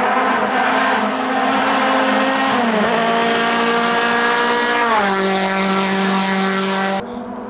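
Renault Clio 2 RS competition car's four-cylinder engine as the car drives through a hairpin. Its note steps down in pitch twice, about three and five seconds in. The sound cuts off suddenly near the end.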